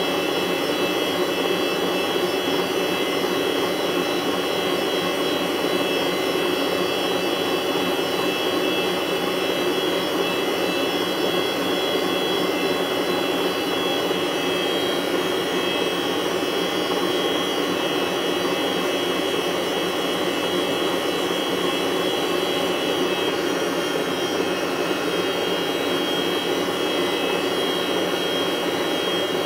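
Steady whir of a fan-type electric motor running continuously, with a constant hum under an even rushing noise.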